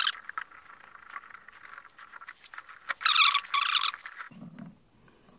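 A thermal fuse being worked loose from its metal clip on a foot bath's aluminium heating element: light scratching, then a louder scraping about three seconds in.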